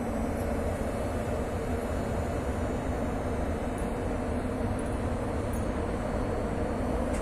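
Comboios de Portugal passenger train rolling past, its carriages making a steady rumble on the rails.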